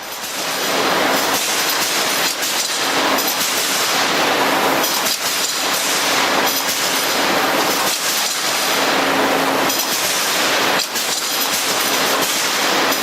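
Wire straightening and cutting machine running: a loud, steady mechanical rattle and whir with a low hum underneath, the sound dipping and changing every two to three seconds.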